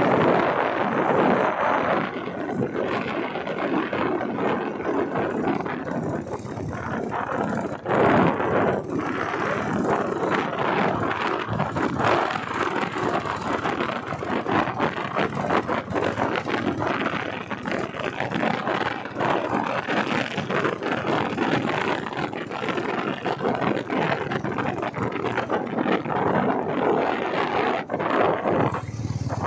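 Wind buffeting the microphone of a moving vehicle, mixed with the vehicle's running and road noise, steady and unbroken.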